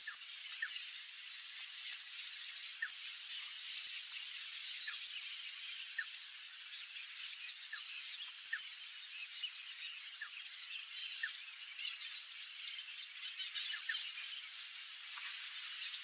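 Outdoor natural ambience: a steady high-pitched insect drone, with short faint chirps about once a second.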